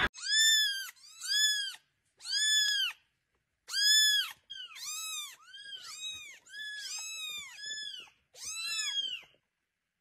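A young kitten mewing about ten times in a row, high-pitched, each cry rising and then falling. It is a hungry kitten crying for food before being fed.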